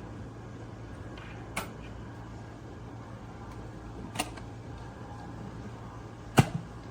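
Electric kettle heating water: a steady low hum and hiss, with three sharp clicks or knocks, the loudest near the end.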